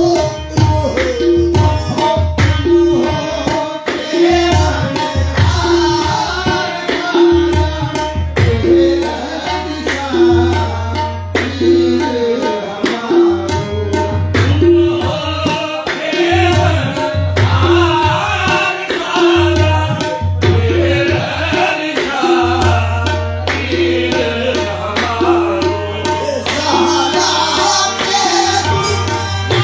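Qawwali music: harmoniums and a steady tabla rhythm accompanying lead and chorus voices singing a manqabat.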